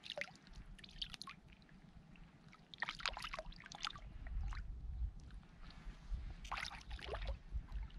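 Shallow seawater splashing and dripping in short bursts, three times, as someone moves in ankle-deep water. A low rumble comes in about halfway.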